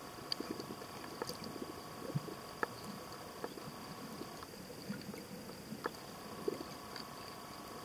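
Underwater sound picked up by a camera: a steady faint hiss with scattered short clicks and soft knocks, and a thin steady whine that drops out for a couple of seconds in the middle.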